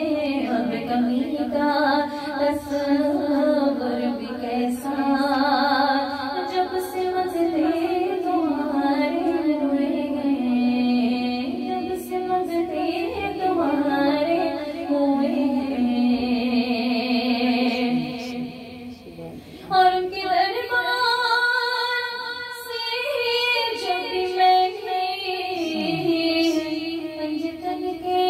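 A woman singing a naat, a devotional song in praise of the Prophet, into a microphone, with long held notes that waver in pitch. About two-thirds through she breaks off briefly, then sings on.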